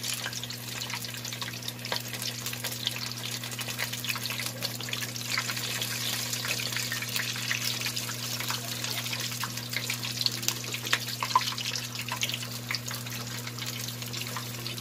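Pork hock deep-frying in a pan full of hot oil, crackling and sizzling steadily as the skin crisps, with a steady low hum underneath.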